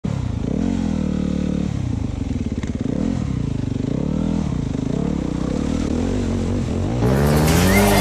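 Yamaha WR250 dirt bike engine revving up and down as the bike rides through a shallow creek crossing, its pitch rising and falling several times.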